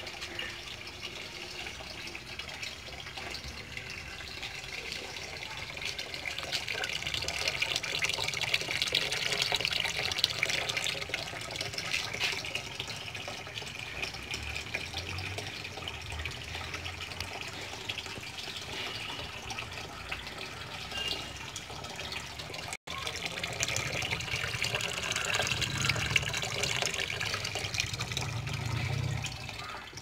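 Water from a garden hose pouring and splashing into a partly filled tank, a steady gushing fill, with a momentary break about two-thirds of the way through.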